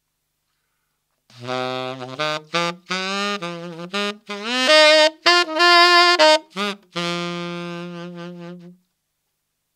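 Solo tenor saxophone playing a bluesy G minor blues-scale lick up to speed, starting about a second in. Several notes are scooped up into pitch, the D through its palm-key fingering, and the phrase ends on a long held note.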